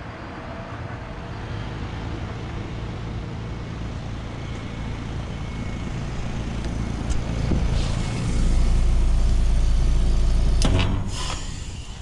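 American Standard Silver Series heat pump outdoor unit running in defrost, its compressor humming steadily with the fan stopped while steam rises, the sound growing louder. Near the end there is a loud low rumble, then a few short, loud noisy bursts.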